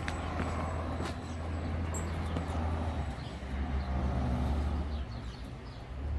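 FAAC electric sliding-gate operator running, its gear motor driving the pinion along the toothed rack of a self-supporting steel sliding gate as the gate travels. It gives a steady low hum that shifts slightly in pitch a couple of times.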